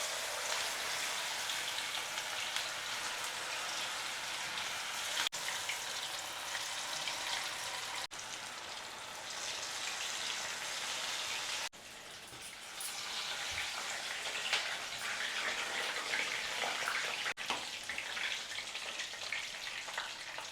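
Battered cauliflower florets deep-frying in hot oil: a steady sizzle. It cuts out for an instant four times and is quieter for a couple of seconds a little past the middle.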